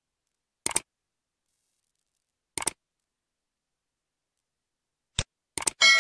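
Computer mouse clicks, each a quick press-and-release pair, a few times in near quiet. Near the end a bright, ringing chime starts and keeps sounding.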